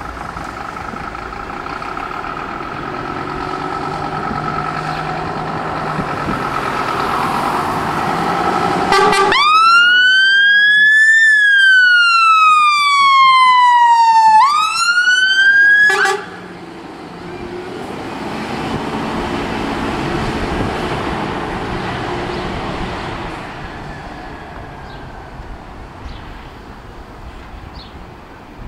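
Scania fire engine pulling away, its diesel engine growing louder as it comes out. Then its electronic siren sounds a single wail cycle lasting about seven seconds: it rises, falls slowly, rises again and cuts off suddenly. After that the engine noise fades as the truck drives away.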